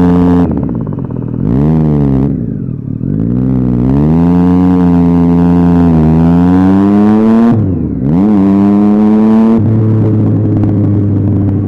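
Triumph Street Triple 675's inline-three engine running with no exhaust fitted, under way. The revs fall and pick up twice in the first three seconds, then climb steadily for about four seconds. They drop sharply, pick up again, and hold steady.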